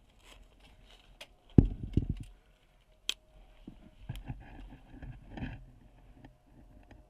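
Scattered sharp knocks and clicks over faint scuffing, the loudest, with a low thump, about a second and a half in: a paintball player's marker and gear knocking as he shifts behind a rock.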